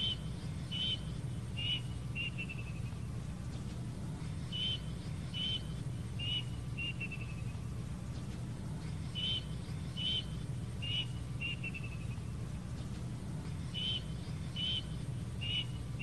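Plaintive cuckoo (kedasih) singing: four phrases, about four and a half seconds apart, each of four clear whistled notes ending in a quick falling run of notes. A steady low hum runs underneath.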